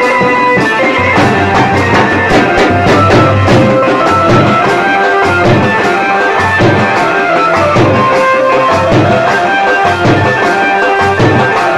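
Live band music: snare and bass drums beating a steady dance rhythm under a melody of long held notes.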